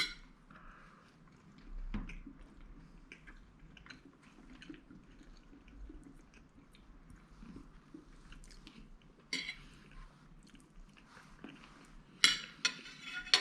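A person chewing a mouthful of soft soured sheep testicle, with scattered sharp clicks, the loudest cluster near the end.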